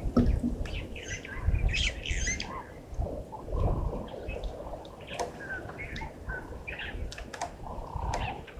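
Several wild birds calling in a mix of short chirps, whistles and squawks, over intermittent low rumbling.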